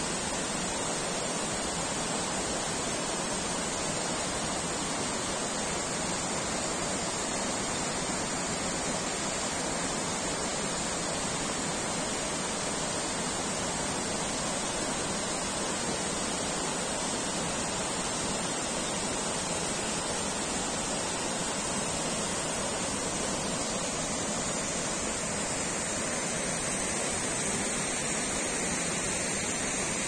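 Tall waterfall and the white-water cascade beneath it: a steady, unbroken roar of falling and rushing water.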